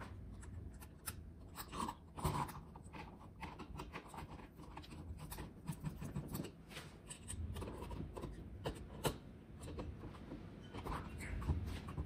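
Screwdriver turning the mounting screws of an in-wall light switch into the electrical box: faint, irregular scraping and small clicks of metal on metal.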